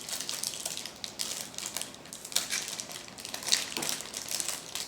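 Plastic toy packaging crinkling and crackling in the hands in irregular bursts as it is worked at, hard to open.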